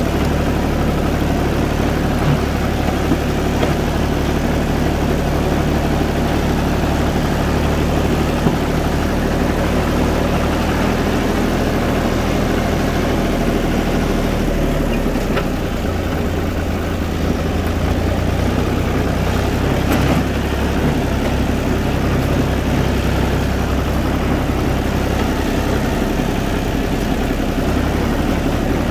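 UTB 445 four-wheel-drive tractor's diesel engine running steadily, its note changing about halfway through.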